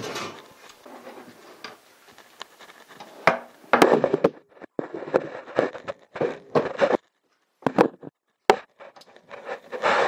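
Close-up handling noise: irregular rubbing and scraping with a few sharp knocks, from hands and body moving against a wooden sink cabinet and setting things down.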